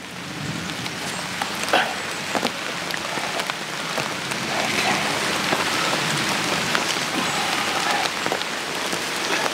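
Steady rain falling, with scattered sharp taps of drops landing close by.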